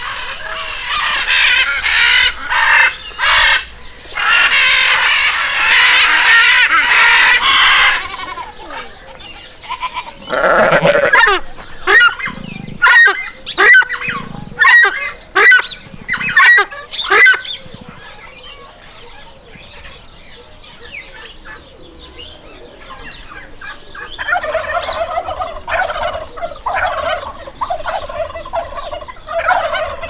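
Blue-and-yellow macaw screeching in long, harsh calls for the first several seconds. Then comes a series of short, repeated calls from another bird, with more bird calls near the end.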